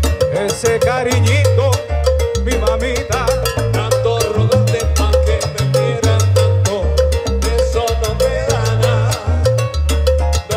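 Live salsa band playing, with congas and bongos keeping a dense steady rhythm over a bass line that moves in steps, and melodic lines above.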